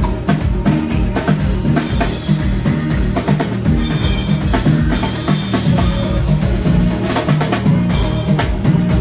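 Live band playing without vocals: a drum kit with kick and snare hits over a moving bass line, with a cymbal wash swelling in the middle.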